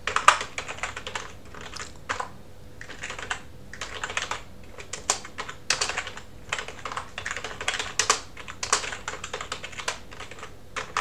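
Typing on a computer keyboard in quick runs of keystrokes broken by short pauses.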